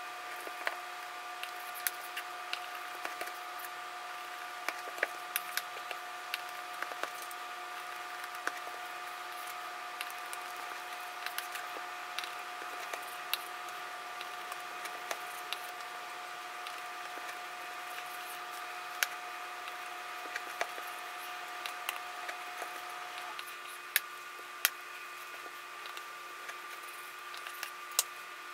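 A chef's knife slicing through a slab of smoked bacon, the blade knocking on a plastic cutting board in sharp, irregular clicks. Under it runs a steady electrical hum, and one of its tones drops out about three quarters of the way through.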